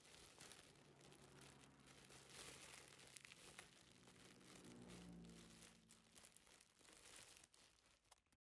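Thin clear plastic gloves crinkling and rustling as they are handled and pulled onto the hands, with a faint low hum underneath. It cuts off to near silence just before the end.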